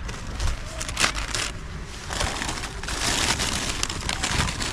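Brown paper bag of deer feed pellets crinkling and rustling as it is handled and tipped over a palm, in irregular crackly bursts.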